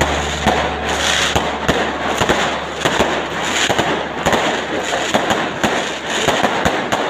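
Fireworks bursting overhead, many bangs and crackles in quick succession.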